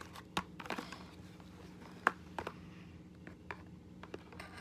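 Handling of a cardboard toy box and a plush toy being cut free with scissors: scattered small clicks and rustles, with a sharper click about two seconds in and another at the very end.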